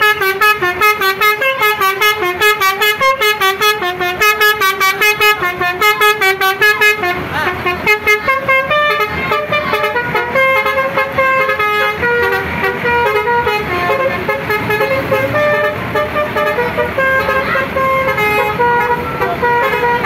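Indonesian tour bus 'telolet' (basuri) multi-tone horn playing a tune. A fast run of short, clipped notes for about seven seconds gives way to longer held notes stepping up and down in a melody.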